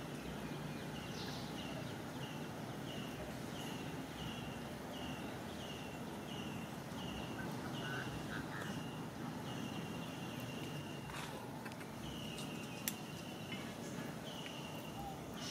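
A short, high chirping call repeated evenly about one and a half times a second, changing near the end to two longer drawn-out calls, over a steady outdoor background hiss; one sharp click about 13 seconds in.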